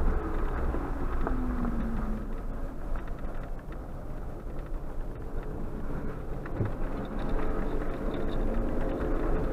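Suzuki Jimny's 1.5-litre four-cylinder petrol engine and tyres on a gravel track, heard inside the cabin as a steady low rumble. The engine note drops about a second in and climbs again near the end.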